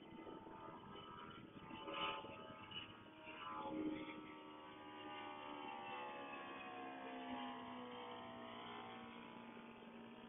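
A motor's drone, its tones falling slowly and steadily in pitch after the first few seconds, like a vehicle or aircraft passing by. It is joined by a couple of brief louder noises about two and four seconds in.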